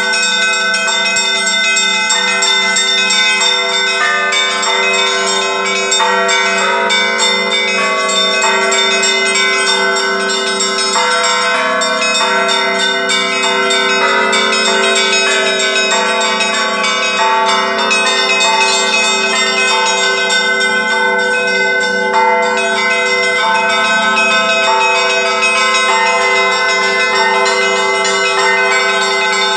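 Russian Orthodox church bells rung together in a continuous peal. The small bells are struck in a quick, steady rhythm over the long-ringing tones of the larger bells.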